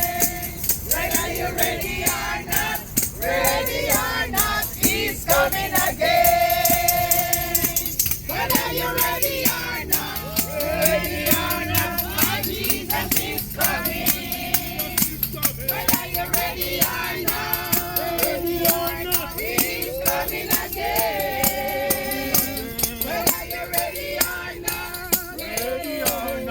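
Worship music: voices singing, with hand percussion such as a shaker keeping a steady beat.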